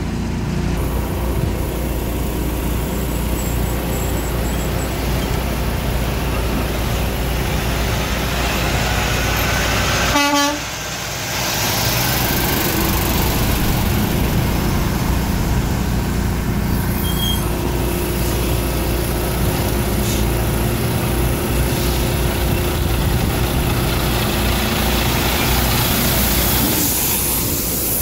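Semi truck's diesel engine running as the tractor-trailer rolls slowly past close by, with a steady low rumble. No horn is sounded: the truck has no horns.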